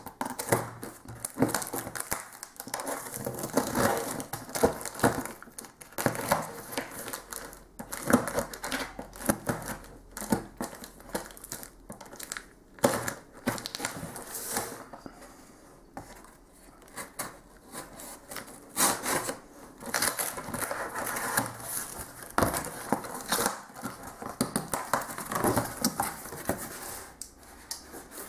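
Packing tape and cardboard being slit with a folding knife's blade and torn open: irregular crackling, ripping and rustling with many short scrapes and clicks, as the box's taped seams are cut and its flaps pulled back.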